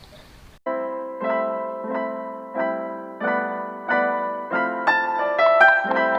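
Background music: a piano playing chords struck at an even pace, about three every two seconds, starting just under a second in after a brief lull.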